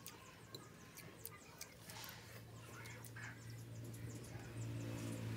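Faint clinks of a metal spoon on a plate during eating, with chickens clucking. A low steady hum comes up about two seconds in and grows louder toward the end.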